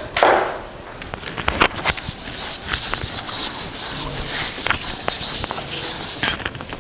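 Blackboard duster wiped back and forth across a chalkboard: a dry rubbing hiss that builds about two seconds in and fades near the end, with scattered light knocks.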